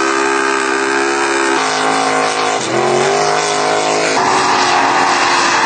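Mega truck engines running hard in mud, with the engine note changing abruptly twice, as one clip cuts to the next. About two and a half seconds in, one engine's pitch drops and then climbs again as it revs.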